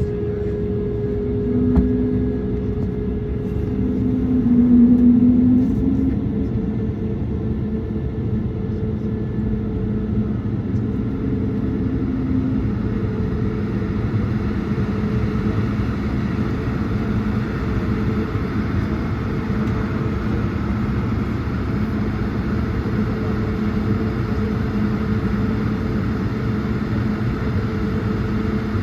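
Cabin noise inside an Airbus A220-100 jet airliner: the Pratt & Whitney geared turbofan engines and the cabin air system make a steady rumble with a constant hum. The level stays even throughout, so the engines are not spooling up.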